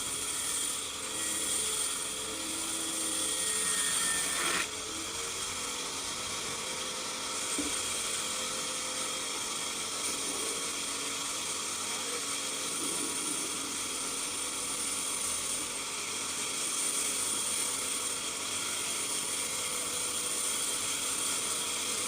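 Power saw running steadily with a high whine and hiss, as it cuts timber. The sound changes abruptly and drops a little about four and a half seconds in.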